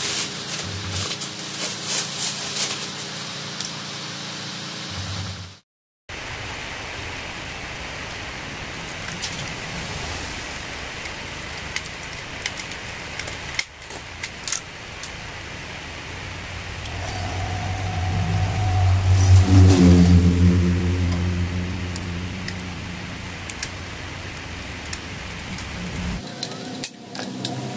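Hand work with a pop-rivet gun on a metal exhaust silencer: rustling and scattered sharp clicks and snaps. Partway through, a motor vehicle passes by, rising to its loudest about twenty seconds in and then fading.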